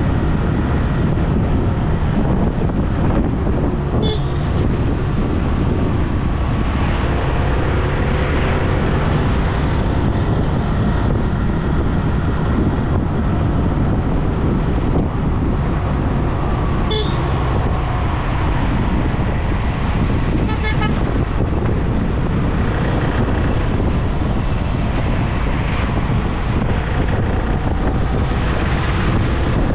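Steady road and wind rumble of a car driving along a highway in traffic, with other vehicles' horns sounding briefly a few times.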